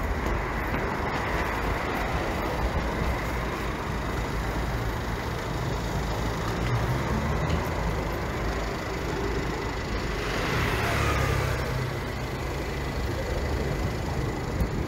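City street traffic: a steady low rumble of road vehicles, with one vehicle passing close by about ten seconds in.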